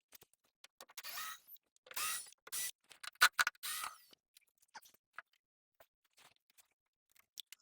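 Scratchy scraping and a few sharp clicks of wood and tools being worked as a wedge is driven under a door frame to lift one side. The sounds come in a handful of short bursts in the first half, with one sharp click in the middle, then only a few faint ticks.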